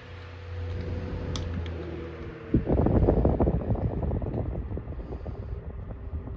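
Portable electric fans running: a motor hum with a steady whine, then, after an abrupt change about two and a half seconds in, another fan whose air stream buffets the microphone.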